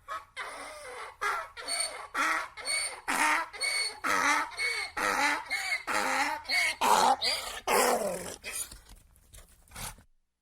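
A dog barking over and over, about two short barks a second, the barks getting weaker near the end.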